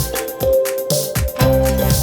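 Upbeat background music with a steady beat, drums and bass, in a funk style.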